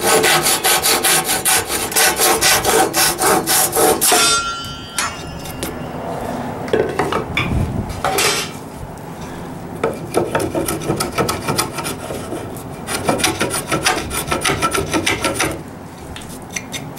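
Hand saw cutting with quick, even strokes through a hard osage orange strip, trimming it flush with an oak board, with a brief metallic ring from the blade about four seconds in. A second run of rapid scraping strokes on the wood follows from about ten to fifteen seconds.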